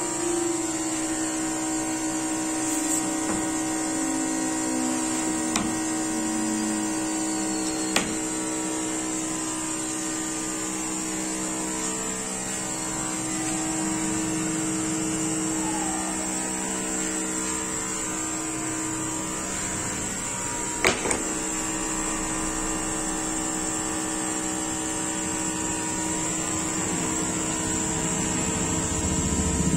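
Steady electric machine hum with several even tones and a high whine, consistent with a CNC router running in the workshop. A few light clicks sound through it, the loudest a double click about two-thirds of the way in, and a lower rumble builds near the end.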